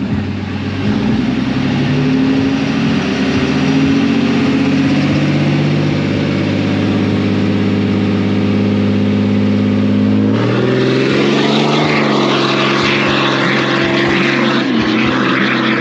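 Two pickup trucks' engines revving up and holding high revs at a drag strip starting line. About ten seconds in they launch, and the sound turns abruptly louder and rougher as they pull away down the track.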